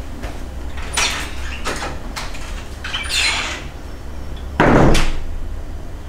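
Handling noises: a few separate clicks and knocks, then a louder, short bump about three-quarters of the way through, over a low steady hum.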